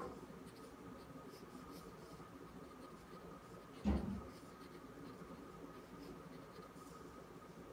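Graphite pencil scratching quietly on paper with short drawing strokes, and a single dull knock about four seconds in.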